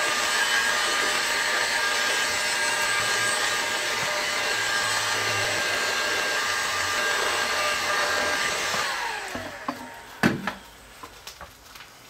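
Milwaukee heat gun blowing hot air over cellophane, running steadily with a whining fan. About nine seconds in it is switched off and the whine falls as the fan spins down, followed by a few light knocks.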